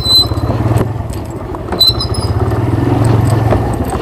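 Motorcycle engine running at low, steady revs, with small knocks and rattles from the bike on an offroad track. Two brief high squeaks, one near the start and one about halfway.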